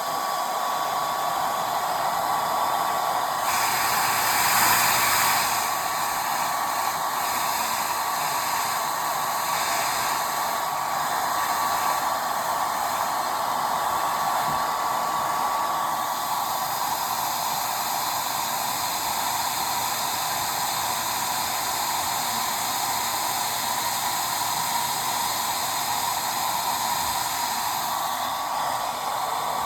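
Hair dryer blowing steadily, a constant rush of air with a thin steady whine. It swells louder and brighter for a couple of seconds about four seconds in.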